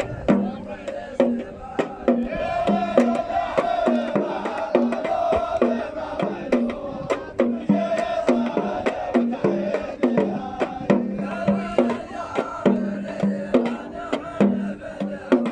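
Omani razfa: a group of men chanting together over a steady beat of drums, about two strokes a second, the chant coming in about two seconds in.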